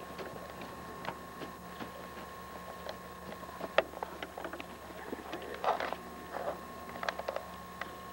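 Handling noise from a camcorder being swung and jostled: scattered knocks, clicks and brief rustles over the camera's own steady electrical hum. The sharpest knock comes about four seconds in, and there are a few short scuffling rustles near the end.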